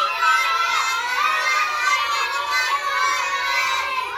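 A roomful of young children all shouting out at once, many high voices overlapping in a steady loud din.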